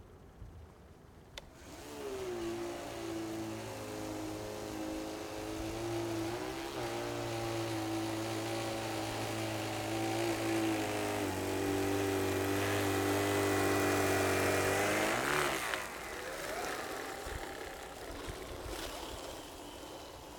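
Motor of a radio-controlled single-stage snow blower prototype running at a steady pitch while its auger throws snow. It starts about two seconds in, steps in pitch twice, and cuts off sharply about three-quarters of the way through.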